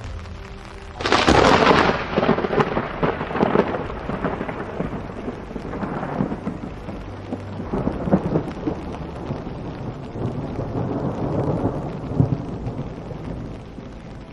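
Thunder: a sharp clap about a second in, then a long rolling rumble with further cracks and swells that slowly dies away.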